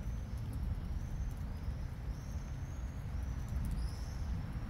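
Songbird giving a series of short, thin, high whistled notes, some gliding slightly in pitch, over a steady low outdoor rumble.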